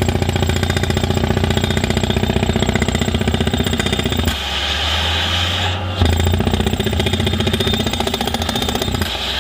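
Percussion rock drill on a tracked ground-screw rig hammering rapidly as it bores a pilot hole through rocky clay, over the steady drone of the rig's engine. About four seconds in, the hammering stops for a couple of seconds, leaving a hiss, then starts again, and it pauses briefly once more near the end.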